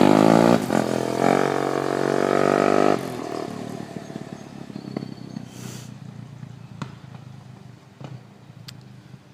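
A vehicle engine running loud and changing pitch as it pulls away, dropping off after about three seconds and fading into the distance. A few single sharp clicks follow.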